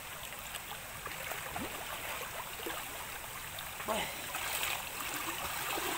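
Shallow stream water running and swirling around a person moving through it along the bank, a steady wash with faint voices.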